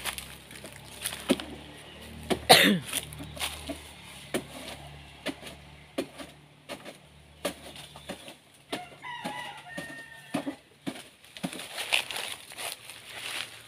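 Chickens calling: a loud falling squawk about two and a half seconds in and a rooster crowing around nine seconds in. Around them come many short snaps and rustles of dry banana leaves and stems as a man climbs the banana tree.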